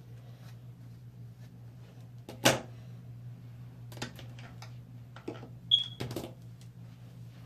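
A few light knocks and clicks over a steady low hum, the loudest knock about two and a half seconds in, with a brief high beep just before six seconds.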